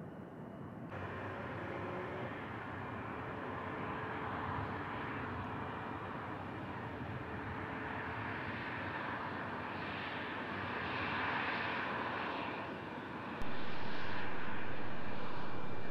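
The twin rear-mounted turbofan engines of a Bombardier CRJ regional jet running as it rolls along the runway, a steady jet rush with a faint high whine that swells for a while past the middle. A sharp click near the end, after which the sound is louder.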